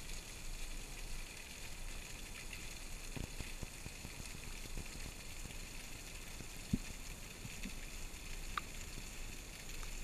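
Underwater ambience at depth picked up through a camera housing: a steady hiss with a faint crackle, broken by a few soft low thumps and one brief click.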